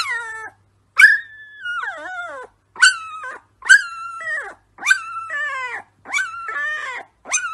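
Young husky puppy howling in a run of about eight short calls, roughly one a second, each starting high and sliding down in pitch.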